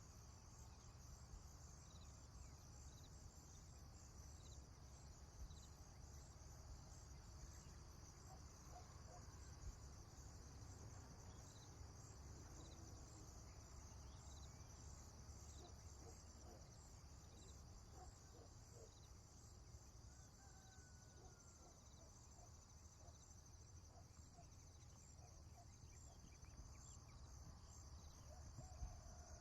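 Faint prairie ambience: a steady, pulsing high-pitched chorus of crickets and other insects, with scattered short bird calls and a low wind rumble underneath.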